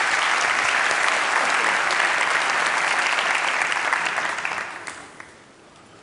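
Audience applause, a dense patter of many hands clapping, which dies away about four and a half seconds in.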